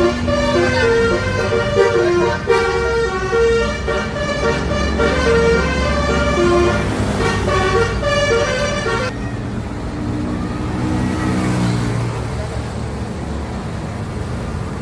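Bus telolet horn, a multi-tone musical horn playing a quick tune of short stepped notes, which cuts off about nine seconds in. The bus's engine and road noise continue under it and after it.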